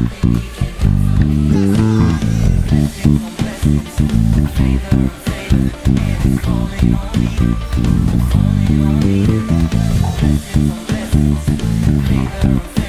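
Bass guitar playing a busy line of short, quickly changing notes over a full band track with guitar.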